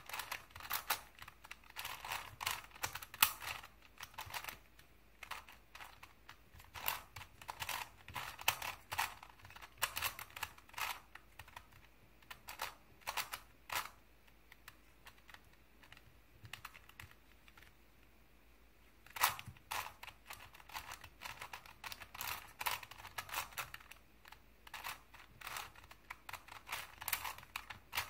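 Plastic layers of a Crazy 3x3 Plus Mars puzzle cube clicking as they are turned in quick irregular runs. The turning stops for about four seconds past the middle, then starts again with a sharp click.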